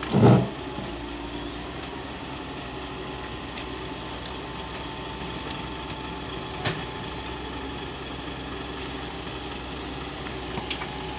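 Caterpillar hydraulic excavator's diesel engine running steadily as the machine works its boom and tracks on a steep bank, with a thin steady whine over it. A loud low thump comes just after the start, and a short knock a little past halfway.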